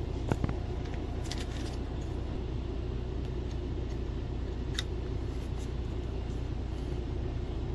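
Semi truck's diesel engine idling steadily, warmed up to operating temperature, with a few light clicks as the plug is handled.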